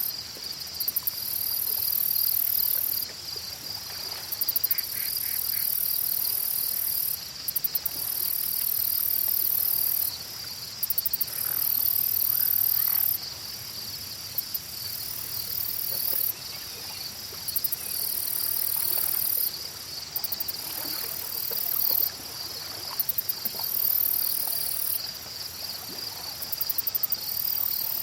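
Night-time insect chorus: a steady high chirring goes on throughout, while a much higher, shrill buzz switches on and off in stretches of a couple of seconds at a time.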